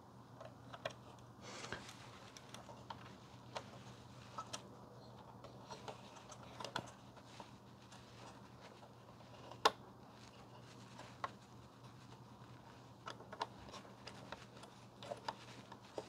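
Faint, scattered clicks and taps of hands handling an M.2 SSD and its plastic packaging, with one sharper click about ten seconds in.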